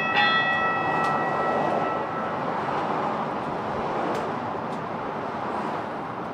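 Type IV MAX light-rail train's bell struck a couple of times near the start, its ringing dying away over about two seconds, over a steady rushing noise inside the train's cab.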